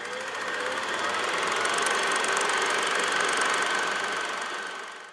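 Film projector sound effect: a fast mechanical clatter that swells over the first couple of seconds, holds, and fades away near the end.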